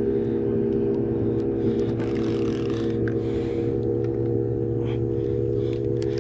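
A boat motor running steadily with an even hum, its pitch rising a little right at the end. A couple of short scraping noises come over it about two and three seconds in.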